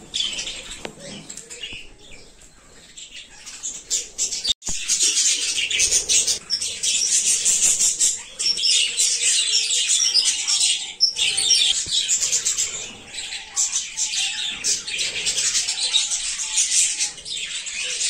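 A flock of budgerigars chattering and chirping, a dense overlapping chorus of short high-pitched notes, quieter for the first few seconds and then loud and continuous.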